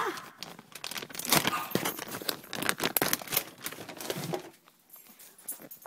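Plastic crinkling and rustling close to the microphone, a dense run of quick crackles that stops about four and a half seconds in.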